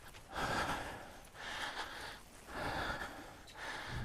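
A man breathing heavily, three breaths about a second apart.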